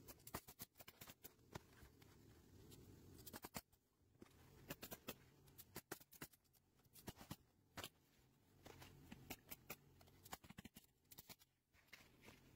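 Hitachi pneumatic coil roofing nailer driving nails through asphalt shingles: faint sharp clicks in quick runs of several at a time, with short pauses between runs.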